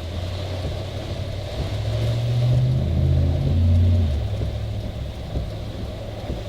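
A motor vehicle's engine running with road noise, growing louder for a couple of seconds in the middle.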